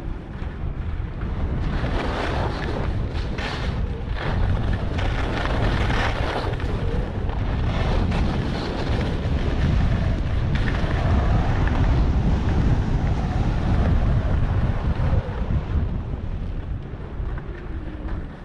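Wind buffeting the microphone with the hiss and scrape of skis on snow during a fast downhill run, louder through the middle and easing off in the last few seconds as the skier slows.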